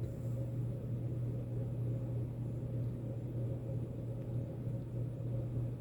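Steady low hum with a rough, rumbling layer above it, unchanging throughout.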